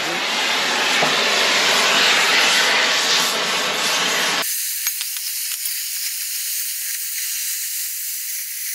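A loud, steady hiss. About four and a half seconds in the lower part cuts out abruptly, leaving a thinner, higher hiss.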